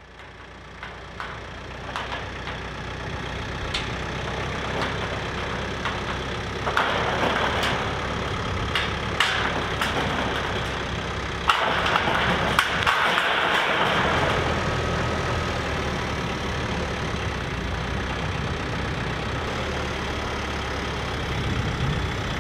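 TYM 574 tractor's diesel engine running while its front loader raises a sheet of metal roofing on pallet forks. The sound fades in over the first few seconds, with bursts of rushing noise about seven and twelve seconds in.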